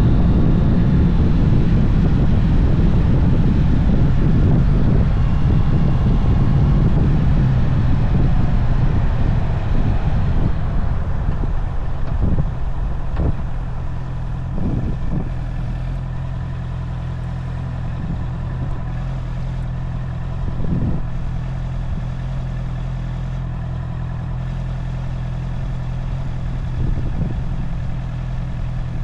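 Honda CB650R's inline-four engine running through its stock exhaust while the bike is ridden, with wind noise on the microphone. It is louder and busier at first, then settles to a steadier low hum, with a few brief rises in engine pitch.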